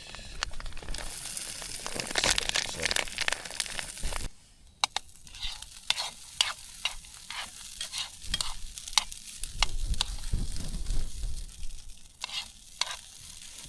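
Food sizzling in a pan, then a run of sharp scrapes and taps of a utensil against the pan as rice is stirred in and broken up.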